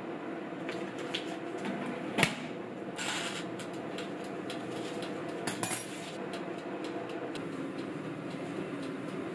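Glass door of a small Toffy toaster oven being shut, with one sharp clank about two seconds in, followed by lighter clicks and clinks of handling the oven.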